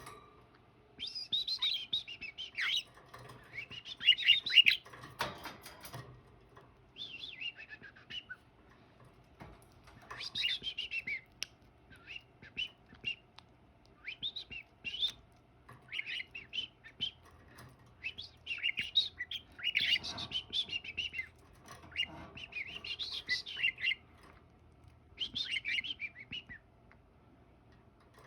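Pet budgerigar chirping and warbling in short bursts of a second or two with pauses between, and a brief loud scuffle about four to five seconds in.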